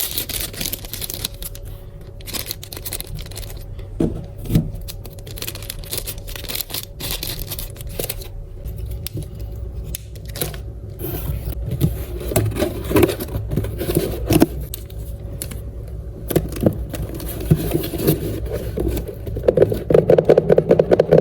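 Paper and packaging being handled by hand: irregular scraping, rustling and light taps, busier in the second half, ending in a quick run of rapid scratchy strokes.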